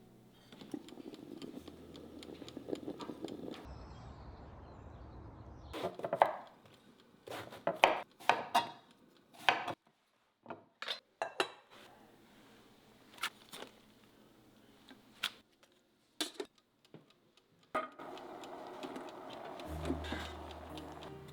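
Kitchenware being handled: a series of separate sharp clinks and knocks of dishes and utensils, most of them in the middle of the stretch.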